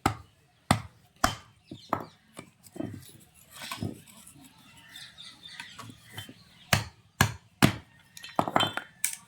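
Sharp knocks and metal clinks from working on a tractor's brake parts: three blows near the start and three more after the middle, then a quick run of ringing clinks near the end.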